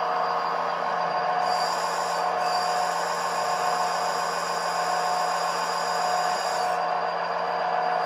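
Scale RC hydraulic excavator (a Liebherr 926 compact model) running, with a steady machine hum and whine. A higher hiss joins about a second and a half in and drops away about a second before the end.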